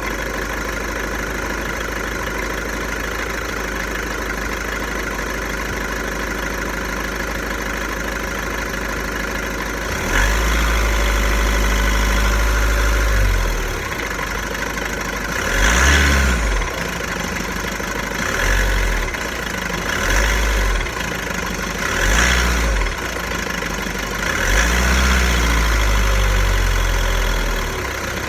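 VW Golf 1.6 TDI diesel engine idling steadily, then from about ten seconds in running louder in repeated swells: a longer one, a strong one, three short ones and a final long one. Each swell carries a deep boom, and the engine's noise is one the owner suspects comes from the dual-mass flywheel.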